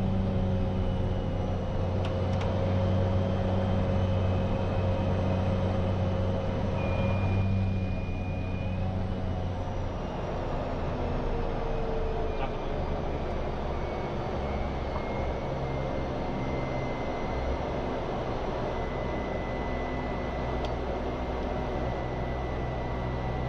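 Cessna 208EX Grand Caravan's PT6A turboprop engine running, heard from inside the cockpit as the aircraft rolls along the airstrip. Its steady drone drops lower and a little quieter about ten seconds in, and a faint high turbine whine comes through later.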